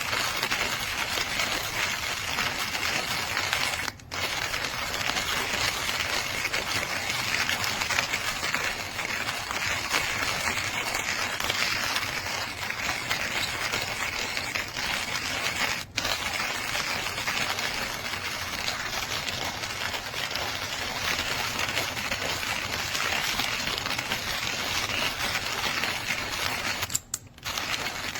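JavaPresse manual stainless steel conical burr coffee grinder being hand-cranked, its burrs crushing coffee beans in a steady, dense crackling crunch with a few very brief breaks.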